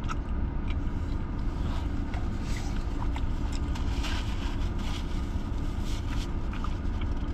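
Steady low hum inside a car cabin, with light paper crackles as a napkin is crumpled and wiped across the mouth, densest midway and again near the end.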